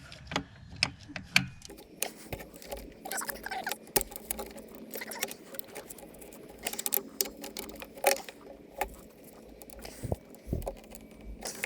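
Irregular small metal clicks, taps and scrapes of hand tools working the thermostat housing nuts off an engine with a 10 mm socket.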